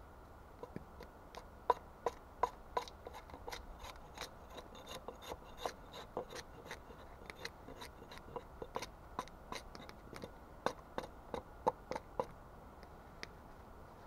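A knife cutting and shaving a log: a run of crisp, irregular cuts into wood, about two or three a second.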